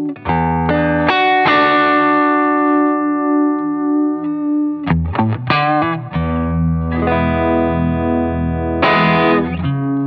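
Electric guitar played through a Fulltone Mini Deja Vibe, a Uni-Vibe-style pedal that is switched on, and a Line 6 HX Stomp. Ringing chords are struck about a second in, a quick run of notes comes around the middle, and fresh chords are struck near the end.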